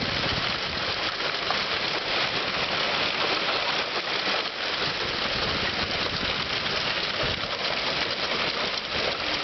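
Heavy hail pelting down steadily: a dense, even patter of hailstones.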